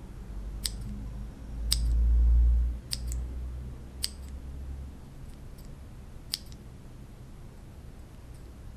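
Cherry MX mechanical keyboard switch pressed and released at uneven intervals, giving about six sharp clicks, some as quick pairs, then fainter ones near the end. A low rumble runs for about a second and a half, starting about a second and a half in.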